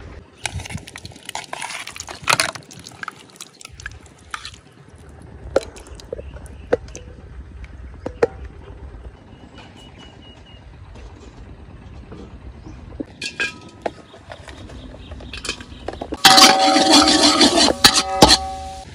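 Oil sizzling in a metal wok while a metal spatula scrapes the pan, making it ring; this is loudest for about two seconds near the end. Before it come a stretch of hiss in the first few seconds and scattered clicks and knocks.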